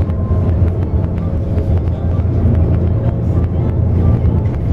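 Inside a moving intercity bus: a steady low engine drone and road noise, with light clicks and rattles from the cabin.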